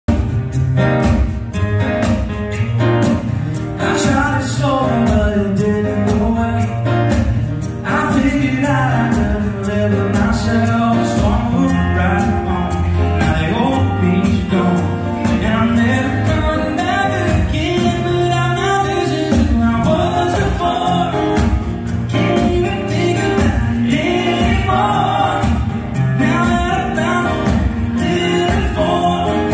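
A live acoustic band with several acoustic guitars playing and voices singing together over a steady beat.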